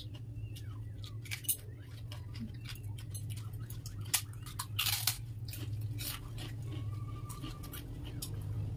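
Crisp, hollow golgappa (fuchka) puri shells being cracked open with fingers and crunched, giving a run of short sharp crackles and clicks over a steady low hum.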